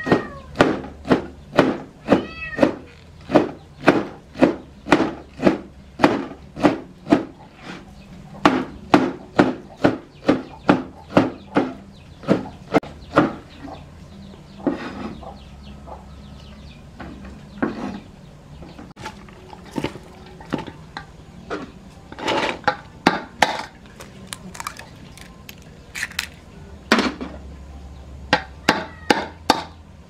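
Cleaver chopping food on a plastic cutting board, steady knocks about two a second, then pausing about halfway and coming back in short bursts. Near the start a cat meows twice.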